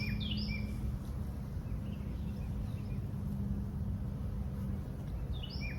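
Honeybees humming steadily around an open hive: a low, even drone. A bird's quick run of repeated chirps comes at the start and again near the end.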